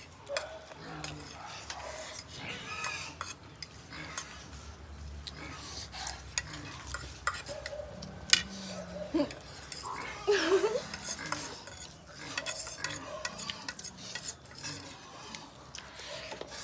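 Metal forks clinking and scraping on plates as several people eat noodles, with small scattered clicks throughout and a short vocal sound about ten seconds in.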